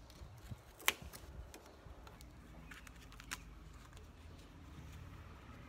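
Scattered light clicks and taps as a paint scraper pushes foam backer rod into the gap between vinyl siding and brick. The sharpest click comes about a second in and another past three seconds.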